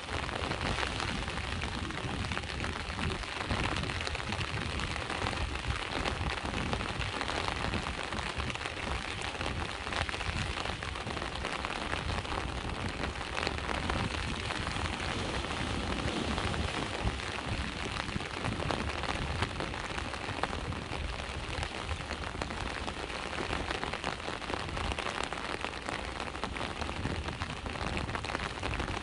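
Steady rain falling, with a low rumble of surf underneath.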